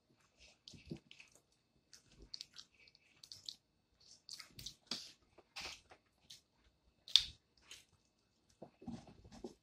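Wet shells of Cajun boiled peanuts cracking and squishing as they are split open by hand, mixed with close chewing. The sounds come as scattered short crackles and clicks, the sharpest about seven seconds in.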